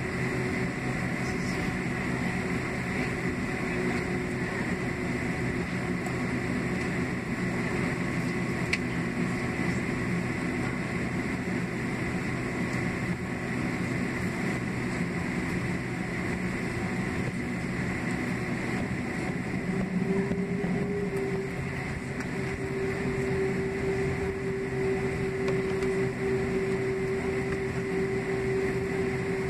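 Cabin noise inside a taxiing Boeing 767-300ER: the steady hum of its General Electric CF6-80C2B6 engines at low power, with a steady high whine. A deeper tone grows louder about twenty seconds in.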